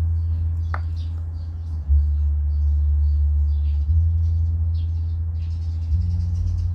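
Homemade power amplifier with an MCRD V3 driver board playing music through a 15-inch loudspeaker, only the deep bass coming through: low notes that shift about every two seconds. Faint bird chirps sound high above it.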